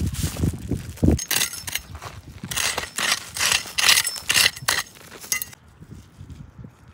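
A few low steps, then about four seconds of quick clinking and rattling of hard objects that stops suddenly.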